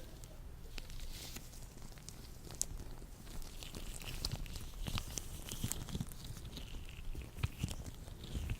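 Latex gloves being worked by hands, rubbing and stretching, with irregular small clicks and soft swishes that grow busier about halfway through.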